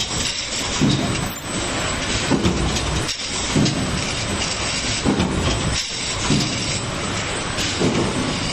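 Six-colour automatic screen printing machine running, its mechanism working through a repeating cycle with a heavy low beat about every second and a quarter over a steady mechanical clatter.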